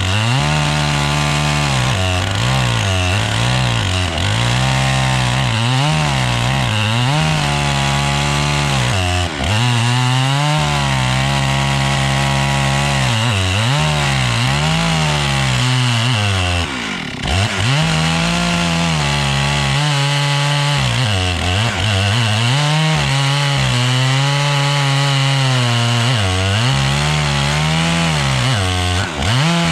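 Stihl MS 661 two-stroke chainsaw with a 36-inch bar running near full throttle in an Alaskan chainsaw mill, ripping a slab along a log. The engine note wavers up and down with the load of the cut, and about seventeen seconds in it drops sharply and picks back up.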